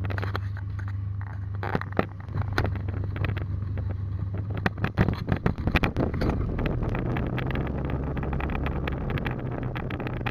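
A vehicle engine running steadily with wind buffeting the microphone; its hum rises a little in pitch about six seconds in. A cluster of sharp knocks and rattles from the camera being handled comes around five seconds in.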